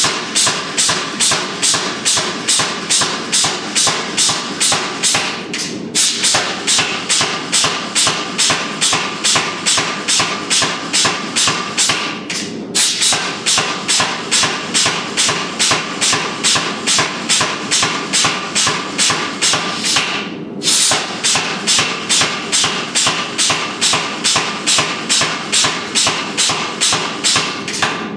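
Steady blacksmith's hammer blows on hot steel at the anvil, about three strikes a second in runs of several seconds with short pauses between, the anvil ringing under each blow.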